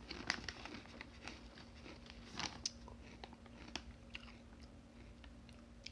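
Quiet, irregular crackles of kettle-cooked potato chips being handled and crunched, mixed with the crinkle of the chip bag as a hand reaches in. A faint steady hum runs underneath.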